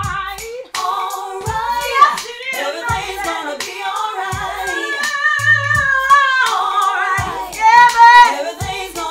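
Music: a woman singing a slow, soulful melody with long held notes, over a steady low beat about once a second.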